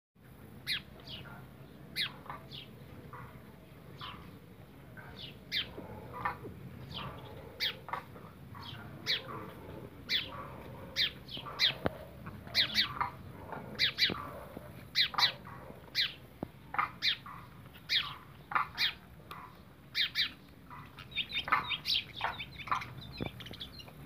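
Small birds chirping: short, high chirps that drop quickly in pitch, one or two a second, with a quicker flurry of them about three-quarters of the way through.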